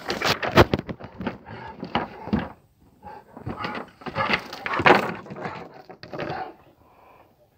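Dogs playing rough on wooden boards: a run of knocks, thuds and scuffling, loudest just after the start and about five seconds in, dying away near the end.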